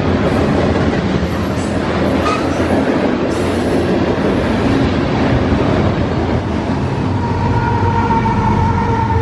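Freight train rolling past close by: a steady rumble and rattle of cars over the rails. From about seven seconds in, a steady high ringing tone joins in.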